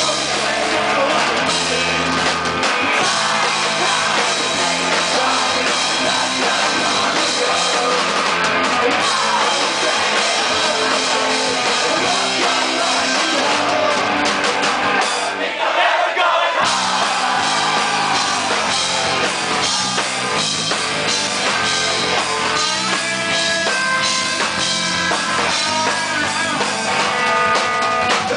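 Live punk rock band playing: distorted electric guitar, electric bass and a full drum kit, with a man singing lead. The bass and drum low end drops out briefly a little past halfway.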